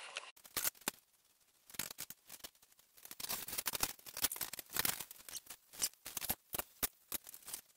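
Irregular light clicks, taps and rustles of hands handling small brake-line parts, with a paper parts bag crinkling.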